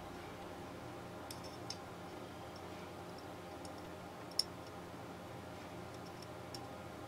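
A few light clicks of small steel parts of a Leatherman Surge multitool being handled and fitted during reassembly, the sharpest about four and a half seconds in, over a steady faint hum.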